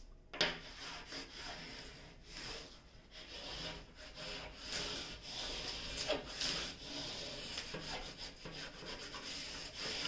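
Hands and a white hand tool rubbing and pressing across the covered diamond painting canvas, smoothing it down onto double-sided tape: irregular scraping and rubbing strokes, with a sharp click about half a second in.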